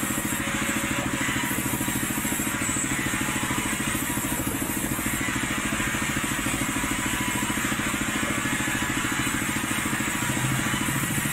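Sawmill machinery running steadily: a constant engine-like drone with a fast, even low throb and a hiss above it.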